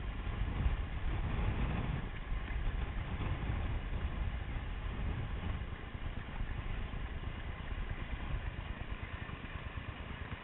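Wind rumbling on the microphone and water rushing past the hulls of a Cross 18 trimaran moving fast. The sound is strongest in the first couple of seconds, then eases slightly.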